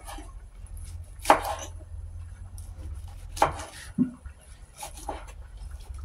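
Eggs being cracked against the rim of a bowl to separate the whites for beating: several sharp knocks a second or two apart, one of them duller.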